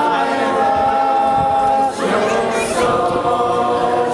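A congregation singing together in unison. One long note is held for about two seconds, followed by a brief break for breath and the next sung line.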